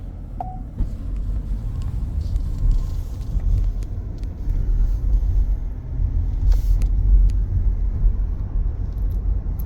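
Steady, loud low rumble with a few faint clicks.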